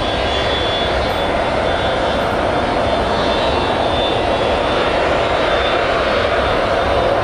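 McDonnell Douglas MD-83's two rear-mounted turbofan engines running at high power as the jet starts its takeoff roll: a loud, steady jet noise with a thin high whine in the first few seconds, growing slightly louder.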